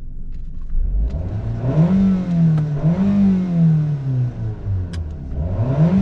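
A 2001 Toyota RAV4's 2.0-litre four-cylinder engine accelerating, heard from inside the cabin. Its pitch rises, falls back and rises again three times. The engine pulls without stumbling now that new coil packs and spark plugs have cured the misfire.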